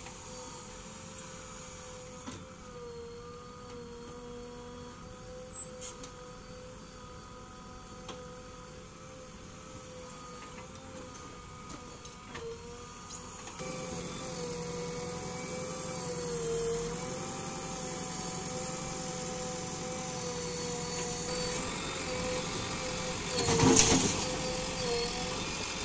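JCB 3DX backhoe loader's diesel engine running steadily, its pitch sagging briefly now and then under working load. It gets louder about halfway through, with a short loud burst near the end.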